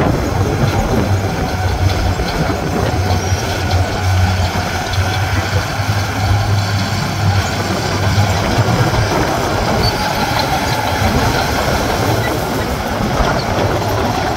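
Heavy construction machine's diesel engine running steadily, with a constant low hum under an even mechanical noise.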